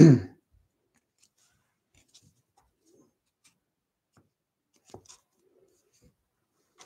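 Quiet handling of baseball trading cards: a few faint taps and rustles, the clearest a pair of small clicks about five seconds in.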